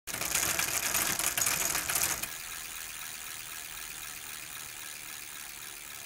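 Intro sound effect: a rapid mechanical clatter, like a fast run of clicks, for about two seconds, dropping to a quieter steady hiss for the rest.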